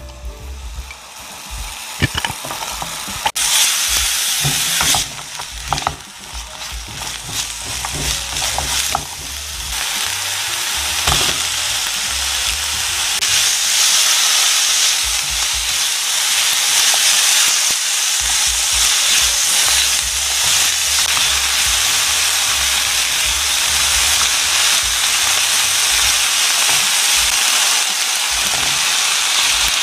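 Diced onion, garlic and chicken breast cubes sizzling in oil in a nonstick frying pan as they are stirred. A few sharp knocks against the pan come in the first ten seconds, then the sizzle grows louder and holds steady.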